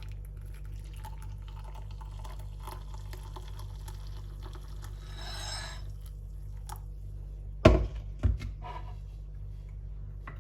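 Boiled water being poured into a cup, under a steady low hum. About three-quarters of the way through there are two loud knocks a little over half a second apart, then a few faint ticks.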